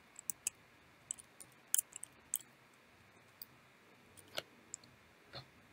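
Computer keyboard keystrokes as a command is typed, sharp irregular clicks, most of them in the first two and a half seconds, with a few more scattered later.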